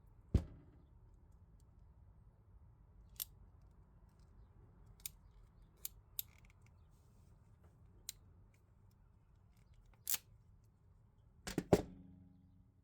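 A hand crimping tool clicking as it is worked onto a spade connector: sharp, separate clicks at uneven intervals, the loudest a quick cluster near the end that leaves a brief ring.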